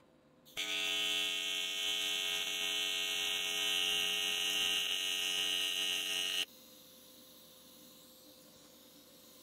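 AC TIG welding arc on aluminum at 115 amps: a loud, steady electrical buzz that starts about half a second in and cuts off sharply about six seconds in.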